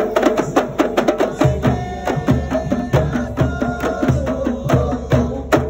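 Kompang ensemble: many Malay hand-beaten frame drums played together in a fast interlocking processional rhythm (paluan berarak), with crisp slaps. Deep open strokes come in about a second and a half in and fall about twice a second.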